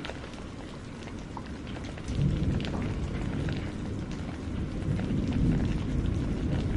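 Water: a steady wash scattered with many small drips and splashes over a deep rumble, which grows louder about two seconds in.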